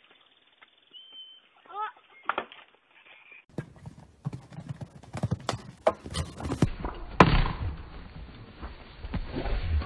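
Horse hoofbeats, irregular thuds and knocks as horses land, canter and buck on sand arena footing, the loudest knock about seven seconds in. Before that, a few faint knocks and a short pitched call about two seconds in.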